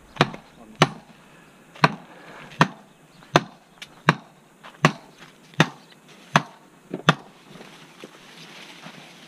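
A hammer driving a seed-variety plot sign's post into the ground: about ten sharp, evenly paced blows, roughly one every three-quarters of a second, stopping about seven seconds in.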